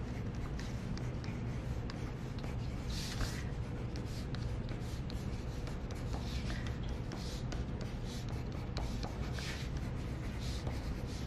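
Pencil writing on paper as letters are marked on a folded sheet: short scratching strokes in spells with pauses between.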